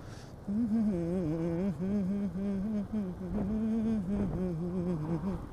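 A male voice singing a long wordless melodic line of a Hindi film song, with held, wavering notes, starting about half a second in.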